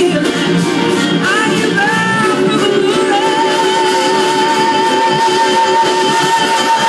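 A live blues-rock band plays, with electric guitars and a horn section. About a second in a lead line slides upward, then from about halfway through it holds one long high note with a slow vibrato.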